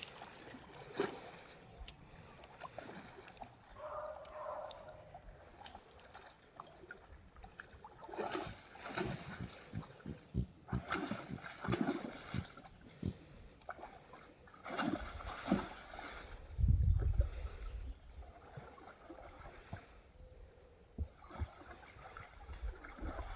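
An animal splashing and sloshing in water in irregular bursts while bathing, with a heavy low thump about two-thirds of the way through.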